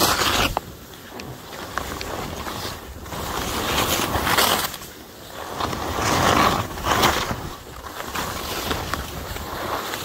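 Skis sliding and carving through snow in a run of turns: a rushing hiss that swells and fades several times.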